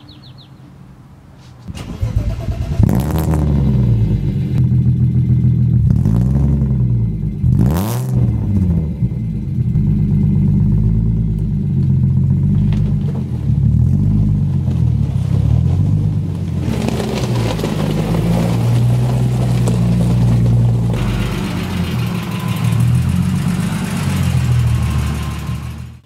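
A 1994 BMW 325is's 2.5-litre straight-six starting about two seconds in, then idling with the revs blipped up and falling back several times.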